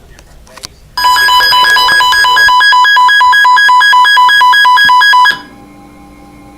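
Electronic weather-radio alert tone: a loud beeping that alternates rapidly between two pitches. It starts about a second in, runs for about four seconds and cuts off sharply.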